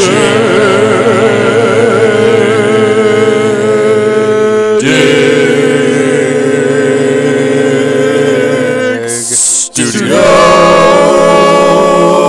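Studio-logo intro jingle of loud, long held sung chords, three in turn, each holding steady after it changes. Just before the third chord comes a short hiss and a split-second break, and the third chord slides up into place.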